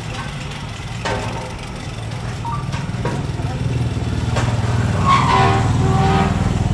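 Motorcycle engine running as it passes close by, growing louder through the second half.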